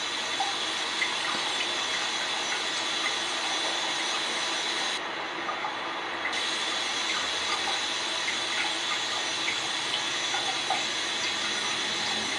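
Water running steadily from a faucet, its hiss briefly duller for about a second around the middle.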